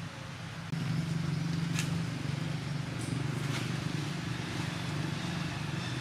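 Steady low engine rumble, as of a vehicle idling, that steps up in level about a second in, with a few brief, faint high-pitched ticks over it.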